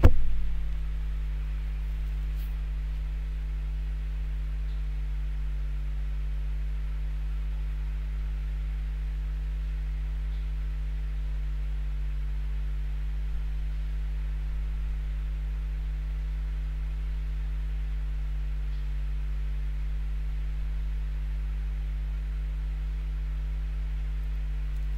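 Steady electrical mains hum, low and buzzy, with a short click at the very start.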